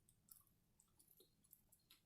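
Near silence, broken by a few faint mouth clicks from chewing food.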